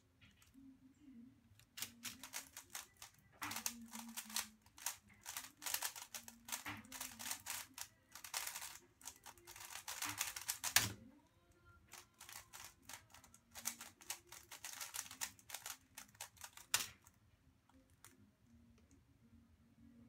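GAN 354M magnetic 3x3 speedcube being turned very fast, dense runs of plastic clicking and clacking in bursts, with a sharp knock about 11 seconds in and another near 17 seconds; the clicking thins out near the end.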